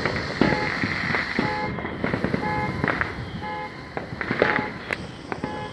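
A ground fountain firework spraying sparks with a steady hiss and scattered crackles, while a car alarm set off by the fireworks sounds a short repeating tone about once a second.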